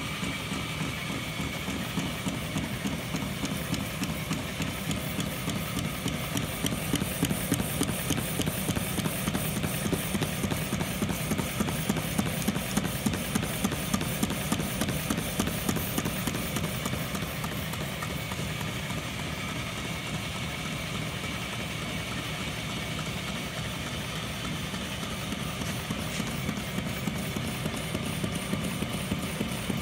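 1956 Clausing metal lathe running, its tool taking a light truing cut on a spinning PVC pipe assembly. A steady machine hum with a rapid regular beat that grows louder in the middle and again near the end.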